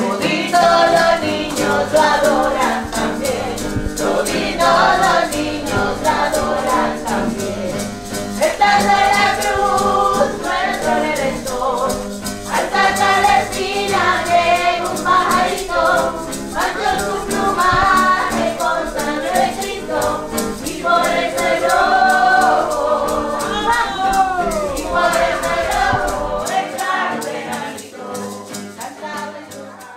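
Music: several voices singing together over a steady shaker rhythm, fading out near the end.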